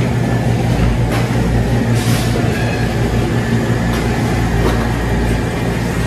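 Steady low mechanical hum with an even rush of noise and a faint high whine, the constant machine background of an indoor market, such as refrigeration or ventilation units.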